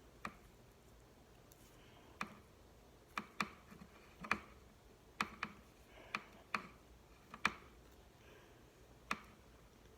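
About a dozen light, sharp clicks and taps at irregular spacing, from handling the small wires of an Ethernet cable while sorting them into colour order.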